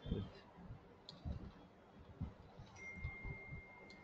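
Faint computer keyboard keystrokes: a handful of separate clicks with pauses between them. A faint steady high tone comes in near the end.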